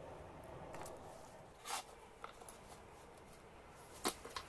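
Small steel parts handled on a wooden workbench: a few light clicks and taps, with one sharp knock about four seconds in.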